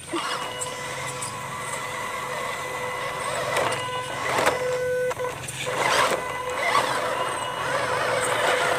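Small electric RC rock crawler's motor and gearbox giving a steady high whine as it crawls over rocks and mud, with a few sharp knocks of tyres and chassis against stone about halfway through.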